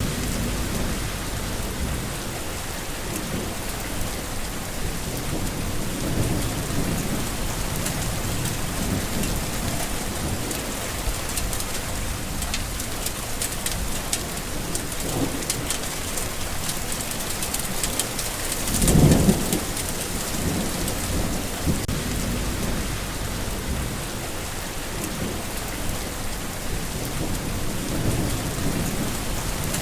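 Steady, heavy rain falling on ground and foliage. A dense, even hiss, with one brief louder low rumble about two-thirds of the way through.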